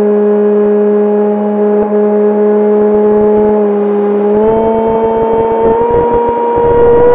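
E-flite Opterra's electric motor and propeller running as a steady, loud pitched drone, stepping up in pitch about four seconds in as the throttle changes. Wind buffets the onboard microphone as a rough rumble that grows over the second half.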